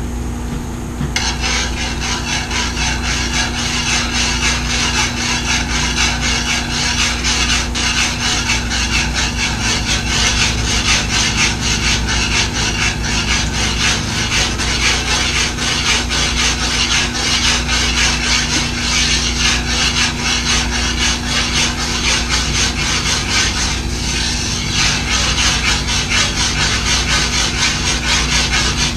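A utensil scraping rapidly and steadily around a skillet, stirring cornstarch slurry into boiling brown gravy to thicken it. A steady low hum runs underneath.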